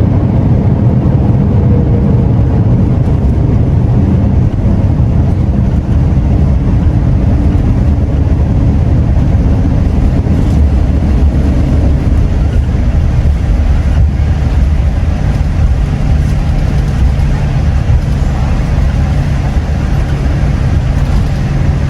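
Loud, steady low rumble inside the cabin of a Boeing 787-8 airliner during its landing run, with a faint steady hum joining about two-thirds of the way through.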